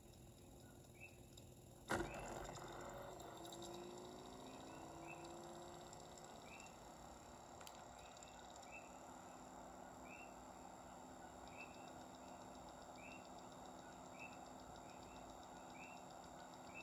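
Near silence with a faint high chirp repeating about once a second, and one sharp click about two seconds in, after which a faint steady hiss sets in.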